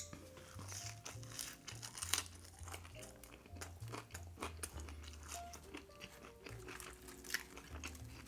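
Eating sounds: a string of sharp crunches and chewing from bites of food, the loudest about two seconds in, over quiet background music with a steady bass line.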